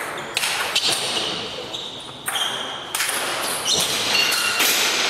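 Table tennis rally in a large hall: a celluloid ball clicking off bats and table, with short shoe squeaks on the hall floor. About three seconds in, as the point ends, louder mixed noise from the hall takes over.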